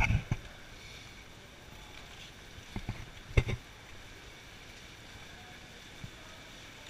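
People wading and stepping over wet rocks in a shallow cave stream: a short burst of splashes and knocks at the start, another cluster about three seconds in, and a faint steady hiss between them.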